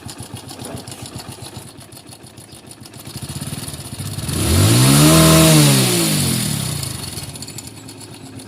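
Hero Splendor Plus's 97cc single-cylinder four-stroke engine idling, given one rev about four seconds in that rises and falls back to idle. It runs with the timing-chain noise it was brought in for: the chain is slack because its upper roller and sprocket are worn thin.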